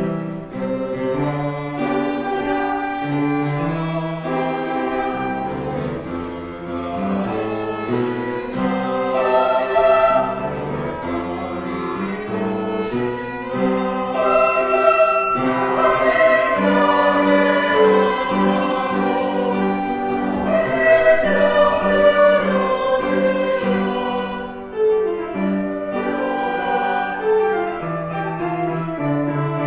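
Church choir singing an anthem in parts over instrumental accompaniment, in long held notes that swell to their loudest around the middle.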